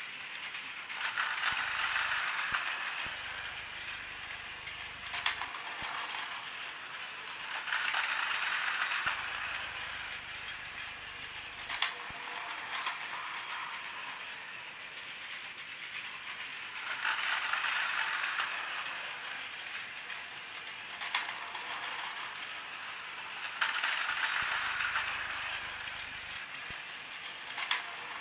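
Plarail 300 Series Shinkansen toy train's battery motor and gears whirring as it runs around plastic track. The whir swells louder and fades four times as the train goes round, with a few sharp clicks in between.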